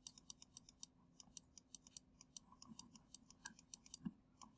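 Near silence with faint, rapid, even clicking, about six or seven clicks a second, and one soft knock about four seconds in.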